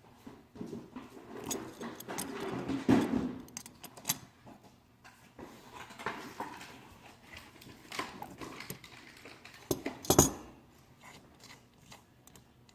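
Small metal clicks, clinks and scrapes of hand tools and carburetor parts being handled while a part is worked loose and removed. There is a louder patch of handling about two to three seconds in and a few sharp clicks about ten seconds in.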